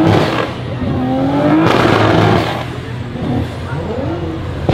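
A Porsche 911's flat-six accelerating hard, its pitch climbing steeply through the revs about a second in and loudest around two seconds in. A second, shorter engine rev rises near the end.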